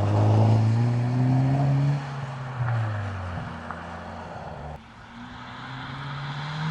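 Hyundai i30 N Fastback's 2.0-litre turbocharged four-cylinder under acceleration, its note climbing for about two seconds before dropping away as the throttle lifts. The engine note falls quieter, cuts briefly about five seconds in, then climbs again near the end.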